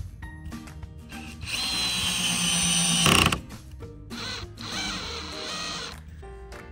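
Cordless drill/driver running as it drives screws through an aluminium mount into starboard, on a clutch torque setting so it won't over-torque them. It runs twice: about a second and a half in for about a second and a half, ending in a short loud burst, then again from about four seconds to six seconds.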